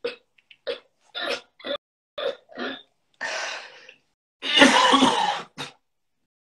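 A young man coughing and clearing his throat: a run of short coughs, then two longer, harsher ones about halfway through, the second the loudest, coughed into his fist.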